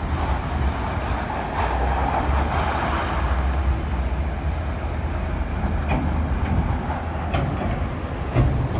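Steady low rumble of heavy vehicles and site machinery, a little louder for a couple of seconds early in, with a few light knocks near the end.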